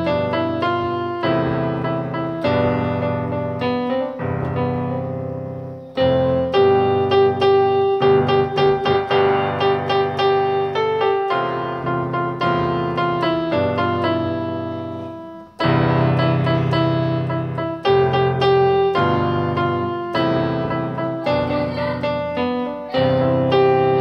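Yamaha PSR-E353 portable keyboard playing in a piano voice: a melody over chords in phrases with short breaks. The keys now produce sound, the sign that the replaced digital-to-analog converter chip has cured its no-sound fault.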